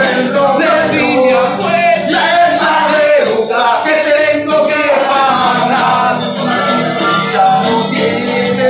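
Live acoustic music: a ukulele and two acoustic guitars strummed while a voice sings. Near the end a harmonica plays held notes over the strumming.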